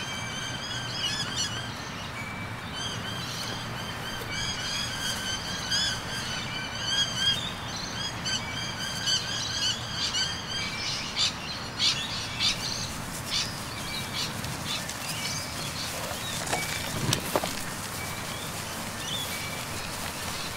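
Birds chirping in quick runs of short, high calls through roughly the first half, followed by a few scattered clicks and taps.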